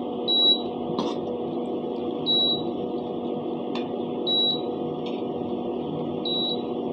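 Chopped onions and tomatoes frying in oil in a pan, a steady sizzle with a low hum under it, and a couple of faint clicks of the metal spatula against the pan. A short high beep repeats about every two seconds.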